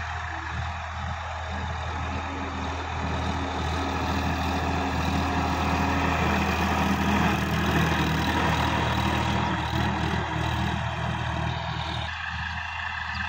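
Sonalika DI-50 RX tractor's diesel engine pulling a rotary tiller through dry soil, with the churning of the tiller blades. It grows louder as the tractor passes close by about halfway through, then fades as it moves away.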